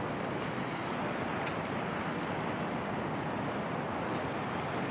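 Steady wash of ocean surf, an even rushing noise with a few faint ticks over it.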